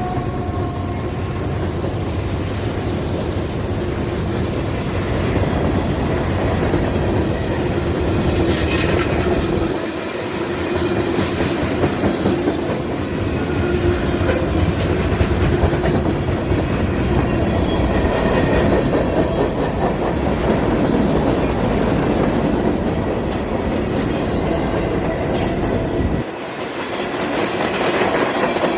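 CSX manifest freight train rolling past, its cars' wheels clicking over the rail joints in a steady clickety-clack. A deep rumble carries through the first ten seconds or so, then falls away, leaving the rattle and clatter of the passing cars.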